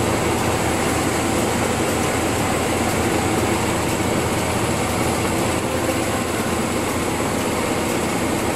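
Mill machinery running with a loud, steady, dense din and a constant hum underneath.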